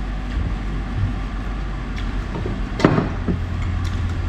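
Spoons clinking on plates as people eat, a few sharp clicks with the sharpest just before three seconds in, over a steady low hum.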